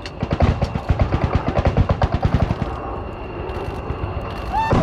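Rapid string of gunfire bangs, about ten a second for some two and a half seconds, simulating the Apache's 30 mm chain gun firing on a target. A short rising tone sounds near the end.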